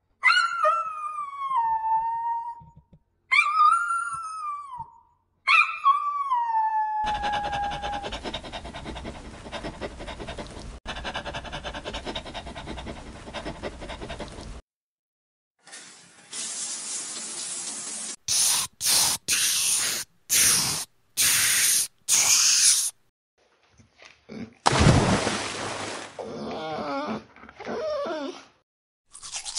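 A small white dog howling three times, each a long cry falling in pitch. After that come a steady stretch of noise, a run of short bursts of hiss, and a wavering pitched sound near the end.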